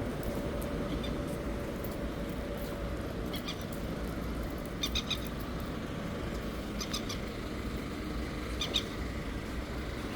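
A bird chirping in short clusters of high notes, roughly every two seconds, over a steady rumble of traffic.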